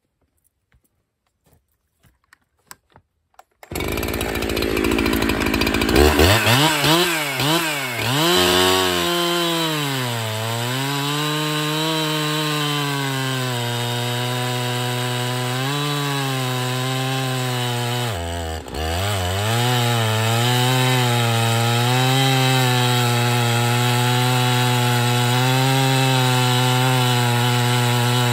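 A Husqvarna 365 Special two-stroke chainsaw, fitted with an Oregon EXJ full-skip chain, starts up about four seconds in after a few faint clicks. It is revved up and down several times, then held at steady high revs while cutting wood. The revs drop sharply for a moment about two-thirds of the way through.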